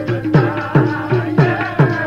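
Kirtan accompaniment: harmonium sustaining steady tones under a tabla beat of nearly three strokes a second, the bass drum's pitch gliding down after each stroke.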